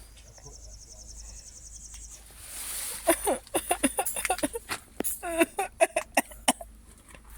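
A high, finely pulsing insect trill for about the first two seconds. Then a chicken clucking in a rapid series of short calls from about three seconds in to six and a half.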